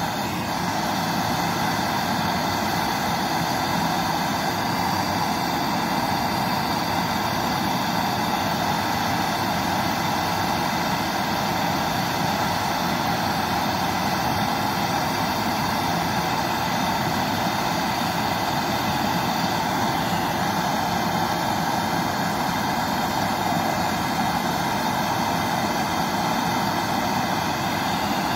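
Handheld gas torch burning steadily, its blue flame held on a copper joint to braze a service valve onto a refrigerator compressor's line.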